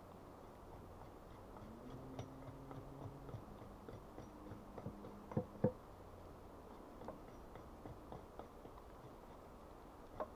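Scattered light ticks and small knocks, with two louder knocks close together about five and a half seconds in.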